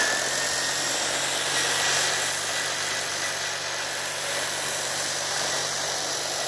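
Electric drill motor running steadily as the power unit of a homemade grass trimmer, spinning its disc cutter head: a constant motor hum and rush with a thin steady high whine.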